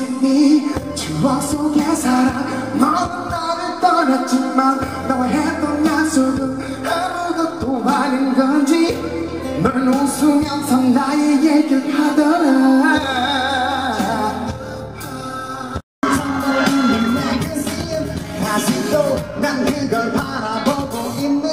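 Live pop concert music: an amplified band with a male lead singer. The music breaks off suddenly about three-quarters of the way through with a split second of silence, then another stretch of song with a different sound begins.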